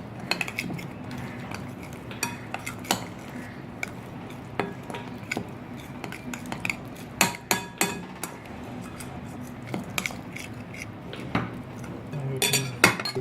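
A spoon stirring a thick yogurt-and-spice marinade in a bowl, with irregular clinks and taps of the spoon against the bowl, coming thickest in a cluster midway and again near the end.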